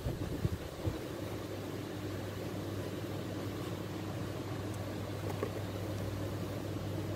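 A steady low mechanical hum, like a motor running, with a few faint knocks in the first second.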